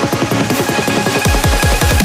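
Electronic dance music with a fast run of deep drum hits, each dropping in pitch, under sustained synth tones.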